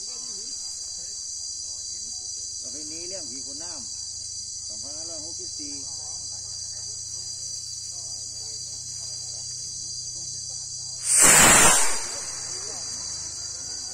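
Steady high buzz of insects, then about eleven seconds in a loud rush lasting about a second as a small bang fai (rain-calling rocket) lit on the ground fires off, trailing smoke.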